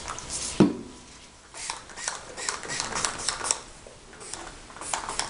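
Handling noise from gloved hands working dye into a dog's foot fur: rustling with scattered clicks and taps, and one low thump about half a second in.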